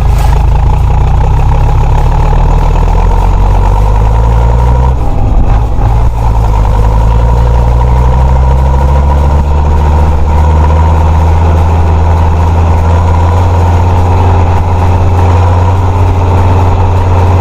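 Fiat 90-90 DT tractor's diesel engine running steadily and loud. Its note dips briefly about five seconds in, then climbs gradually back.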